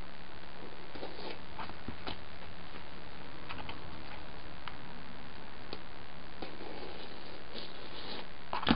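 Light handling of Velcro strips and craft tools on a work surface: scattered small clicks and rustles over a steady low hum, with one sharper knock near the end.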